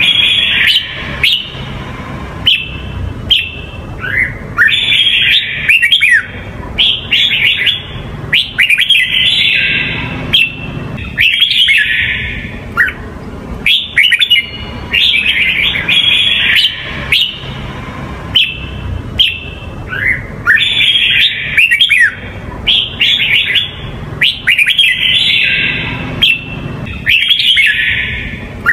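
Red-whiskered bulbul singing: loud phrases of quick, sweet whistled notes, one every second or so, with short gaps between them.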